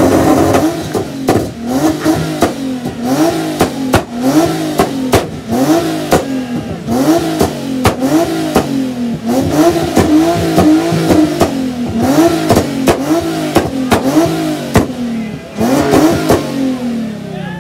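Infiniti G37 coupe's 3.7-litre V6 revved over and over through its exhaust, a quick rise and fall a little more than once a second, with sharp cracks between the revs. The revving eases off near the end.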